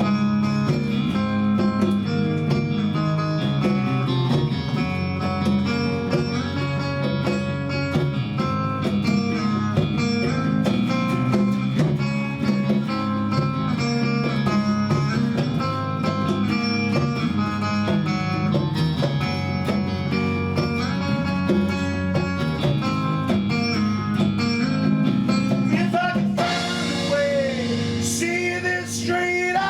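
Band music in an instrumental stretch of a song: guitars over a steady drum beat. About 26 seconds in it thins out to sliding high notes.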